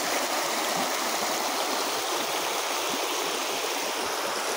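Shallow stream flowing fast over stones, a steady, even rush of water.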